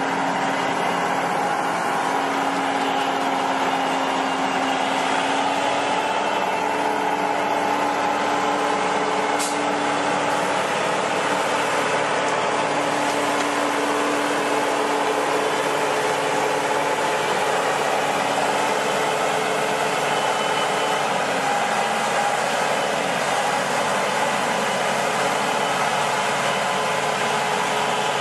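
Tracked swamp vehicle built on a Ural truck, its diesel engine and running gear droning steadily as it crawls through the bog, with a steady whining tone over the engine noise.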